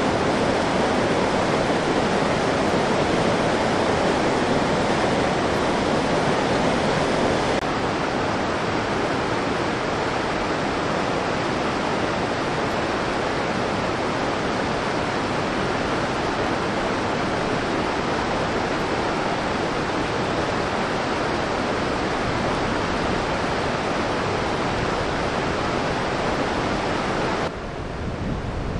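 Steady rush of flowing mountain-river water, an even hiss with no other distinct sounds. It steps down a little in level about eight seconds in and again just before the end.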